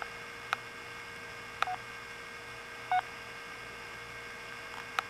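Mobile phone buttons being pressed to bring up a ringtone: five sharp clicks spread over a few seconds, two of them with a short beep. A faint steady electrical hum runs underneath.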